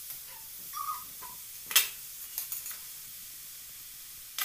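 Grated carrots sizzling in ghee in a metal kadhai as they are stirred with a metal spatula. One sharp clink of the spatula against the pan a little under two seconds in, with a few lighter knocks after it.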